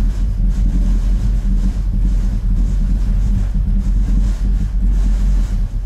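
REL HT 1205 subwoofer playing a bass-heavy movie soundtrack on its own, with no other speakers running: a loud, continuous deep rumble with almost nothing above the low bass. It is driving the room to about 100 dB on a sound-level meter.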